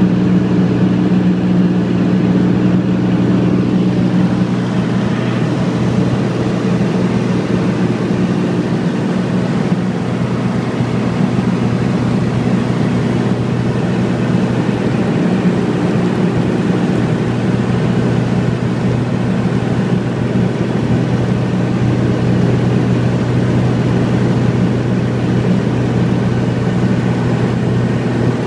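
Piston engine and propeller of a high-wing light aircraft running steadily, heard from inside the cabin; the engine note shifts slightly about five seconds in.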